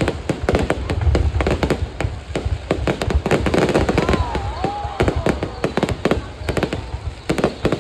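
Fireworks display: a rapid, continuous run of sharp bangs and crackles over a low rumble of booms, with a short wavering whistle about four seconds in.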